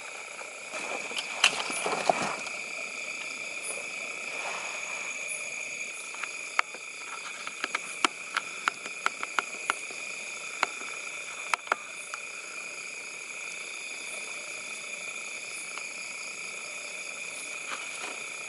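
A steady night chorus of frogs and insects: a constant high ringing with several unbroken tones. Over it there is a rustling burst about two seconds in, and then a scattered run of sharp clicks or snaps in the middle.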